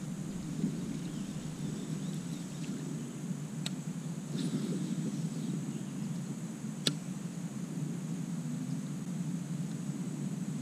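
Insects droning steadily over a low rumble, with two sharp clicks, one about three and a half seconds in and a louder one about seven seconds in.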